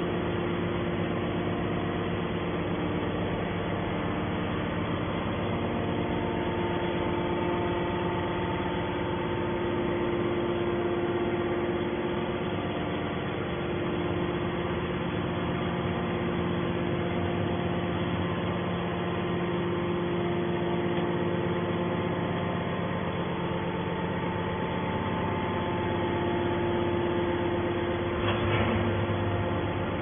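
Hydraulic power unit of a scrap metal baler running steadily: an electric-motor-driven pump giving a constant hum with a few fixed tones. There is a brief knock near the end.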